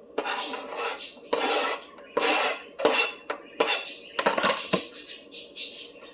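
A metal utensil scraping and clinking against cookware in a series of about nine strokes, each short and harsh, half a second to a second apart.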